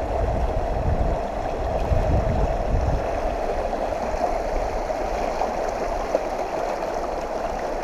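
Mountain stream running, a steady rush of water, with a low rumble through the first three seconds or so.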